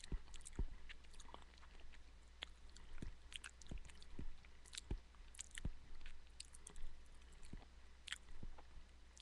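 A dog licking and smacking whipped topping off a person's finger: soft, irregular wet clicks and smacks, several a second.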